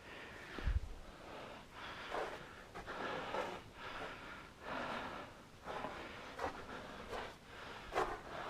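Footsteps crunching on a soft, crispy white crust on a mine floor, about one step a second; it almost sounds like snow underfoot. A low thump a little under a second in.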